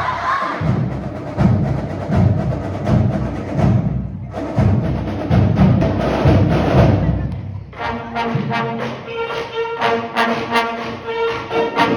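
Marching band drumline playing a fast rhythmic cadence on drums. About eight seconds in it gives way to music with steady held notes.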